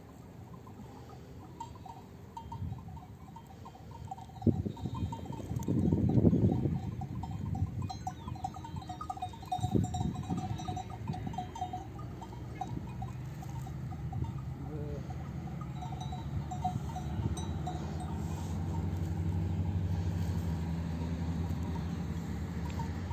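Small bells clinking irregularly, over a low rumble that swells loudly about six seconds in, with a couple of sharp knocks.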